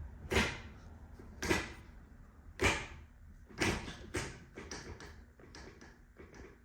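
Manual gearbox shifter fitted with an aftermarket short shifter being worked through the gears. It clunks into gate about five times, then gives a run of lighter clicks near the end.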